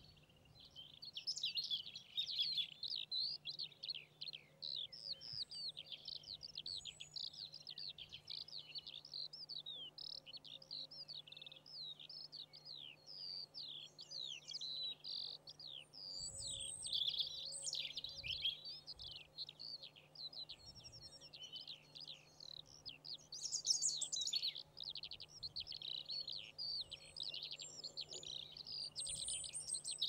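Many small birds chirping and twittering at once: a dense, continuous run of short high calls, louder in patches.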